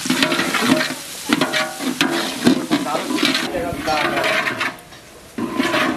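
Sliced onions and bay leaves frying in oil in a large aluminium pot, sizzling as a metal spatula stirs and scrapes against the pot. The sound drops away briefly a little before the end, then the scraping starts again.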